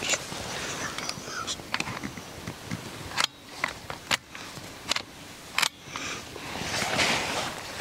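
A handful of short, sharp clicks about three to six seconds in, over rustling, as a scoped rimfire rifle on shooting sticks is handled and brought onto aim.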